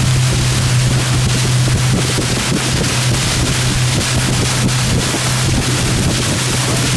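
150 hp Mercury Verado outboard running steadily at towing speed as a low, even hum, under the rush of the wake and wind buffeting the microphone.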